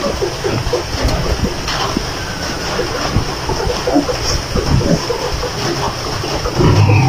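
Piglets snuffling and grunting softly as they nuzzle each other on a cloth blanket: a dense, irregular string of short wet, noisy sounds that gets louder near the end.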